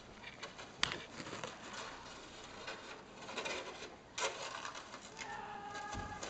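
Faint rustling and scattered sharp knocks of a plastic sled being handled in the snow. Near the end comes a short, high, steady pitched sound, then a low thump as the sled drops onto the snow.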